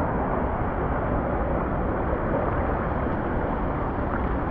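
Steady rush of water through a Master Blaster tube water slide.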